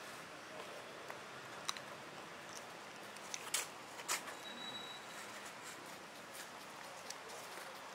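Quiet outdoor background hiss with a few sharp clicks and taps, loudest a little past the middle, and a brief thin whistle just after them.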